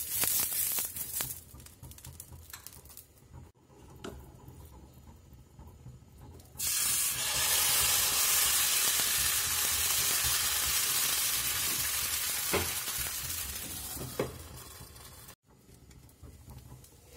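Kallappam (appam) batter sizzling on a hot dosa pan. A loud hiss starts suddenly as the batter is poured in, about a third of the way through, and slowly dies away over about seven seconds. Two light knocks come near the end.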